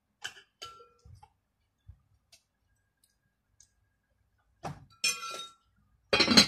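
Spoons and dishes clinking and clattering during a meal: a few light clinks near the start, then louder clatter with short ringing from about four and a half seconds in, loudest near the end.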